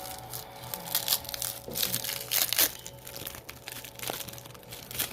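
Packing material being unwrapped from crystals: irregular crinkling and rustling, with sharper crackles every so often.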